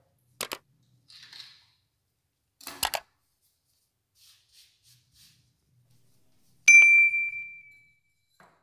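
Sound effects of an animated subscribe-button overlay: a click, a short soft whoosh, a doubled click, then a bright bell ding about seven seconds in that rings out and fades over about a second.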